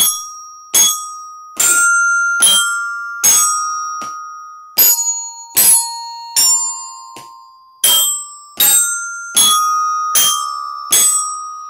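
Glockenspiel (student bell kit) played with mallets: a simple single-note melody, one struck note about every 0.8 seconds, each note ringing on bright and clear, with one beat left out about four seconds in.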